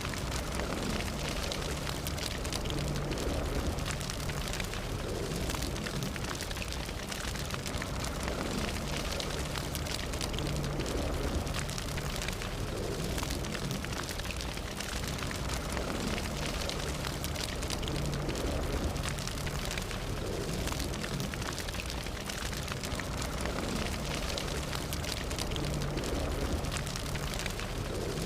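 Fire burning steadily: a dense run of small crackles and snaps over a low rumble.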